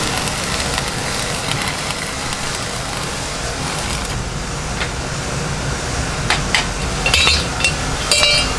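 Steady workshop noise with a low hum, then from about six seconds in several light metallic clinks of steel hand-plough pieces being handled, the last one ringing briefly.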